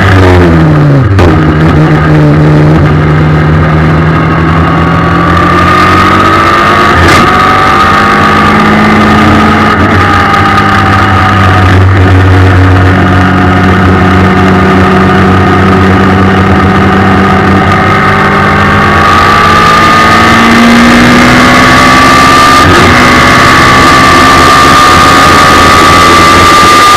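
Suzuki Hayabusa 1300 inline-four motorcycle engine with an Akrapovic exhaust, running in a race car at speed. Its pitch drops sharply in the first second or two as the car slows and shifts down. It holds fairly steady through a long bend, then climbs again near the end as the car accelerates onto the straight.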